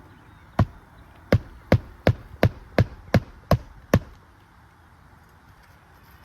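Hammer driving a roofing nail through a shingle: nine sharp strikes at about three a second, stopping about four seconds in.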